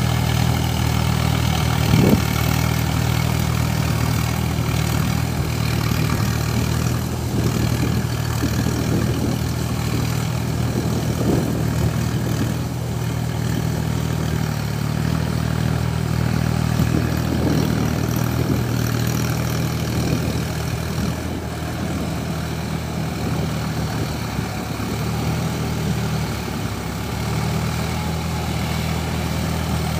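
Sonalika tractor's diesel engine running steadily at a constant pitch while it drives a Shaktiman rotavator through wet paddy mud.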